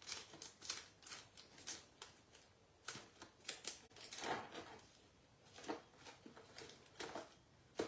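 Rummaging through small packets of craft embellishments: scattered light clicks and rustles, irregular and faint.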